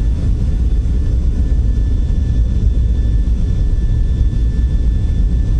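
Boeing 737-800's CFM56 jet engines running steadily at a distance: a continuous low rumble with a faint, high, steady whine above it.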